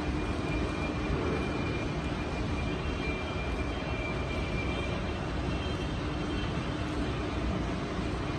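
Large engine lathe running with a big steel shaft held in its four-jaw chuck: a steady mechanical drone with a faint whine above it.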